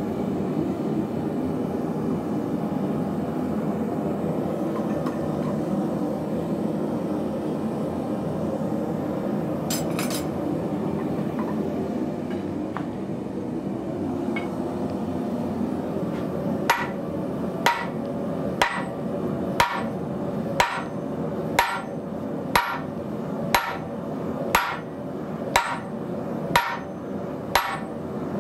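A steady roar runs throughout. Some 17 seconds in, hammer blows begin on a square drift sitting in glowing-hot heavy-wall steel tubing on a cast swage block. They come about once a second, each a sharp, ringing strike of steel on steel.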